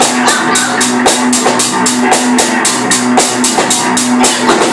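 Live rock played on an electric bass guitar through an amp and a drum kit: a driving beat with fast, even cymbal strokes about five a second over a steady low bass note.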